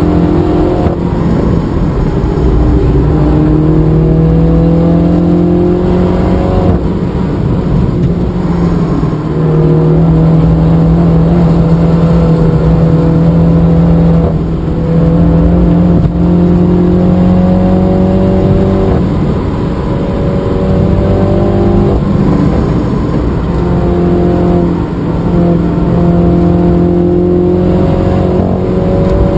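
MINI John Cooper Works (F56) stock 2.0-litre turbocharged four-cylinder engine, heard inside the cabin, pulling hard at speed on track. Its note climbs slowly and drops back several times as the car lifts and shifts through the corners.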